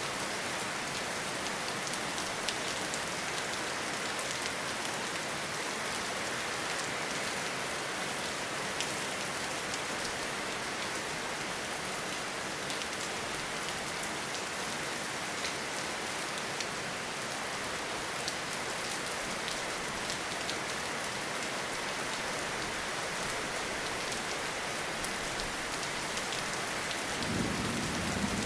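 Steady heavy rain, with scattered sharp drop impacts. About a second before the end, a low rumble of thunder comes in under the rain.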